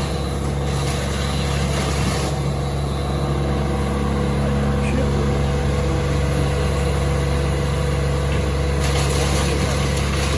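A large engine running steadily at one constant speed, a low even hum with no revving or chipping.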